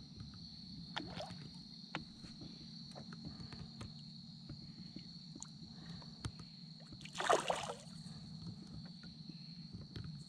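A hooked fish thrashing and splashing at the water's surface once, briefly and loudly, about seven seconds in, against a quiet steady background with scattered small ticks.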